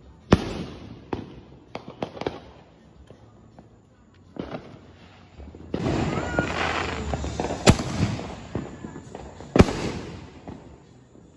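Consumer fireworks going off. A few sharp bangs come at the start, then a long stretch of hissing and crackling from about halfway in, with loud single bangs inside it and another near the end.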